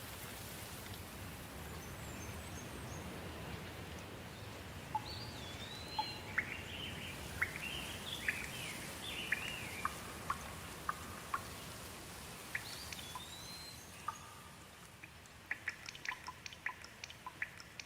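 Steady rain with songbirds calling over it: short rising and falling chirps and whistles through the middle. Near the end comes a quick run of close water drips.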